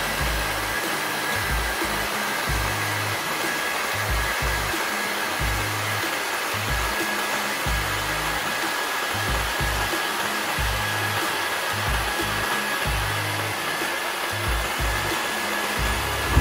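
Black+Decker JS20 400 W corded jigsaw running steadily at speed setting 4 while cutting a small piece of wood, an even motor-and-blade noise with a thin steady whine through it.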